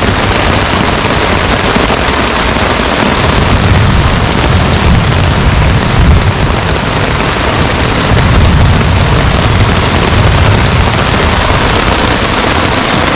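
Heavy rain pouring in a thunderstorm, loud and steady, with a deep rumble of thunder underneath that swells and fades several times.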